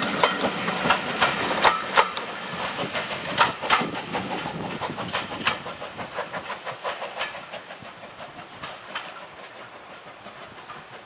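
Passenger coaches of a steam-hauled train rolling past, their wheels clicking over the rail joints in a quick irregular clatter that fades away as the train draws off down the line.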